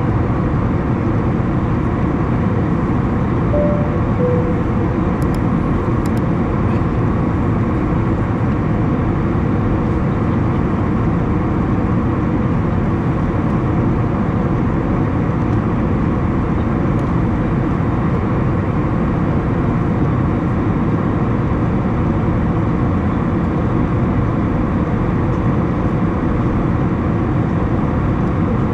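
Steady cabin noise of an Airbus A321 in flight: a constant low rush of engine drone and airflow, even throughout.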